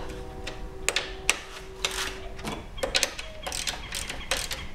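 Stubby hand ratchet turning the 8mm bolts that draw a Prius high-voltage battery module stack together, its pawl clicking in short uneven runs with metal clinks. The bolts are being run in by hand only to pull the pack up evenly, not yet tight.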